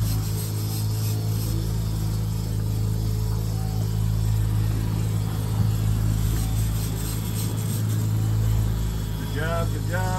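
Fishing boat's engine running, a steady low hum. Near the end a brief wavering higher tone joins it.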